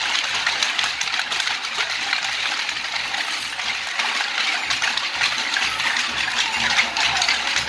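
Dense, steady metallic jingling and rattling from a troupe of dancers' costume bells and rattles as they dance.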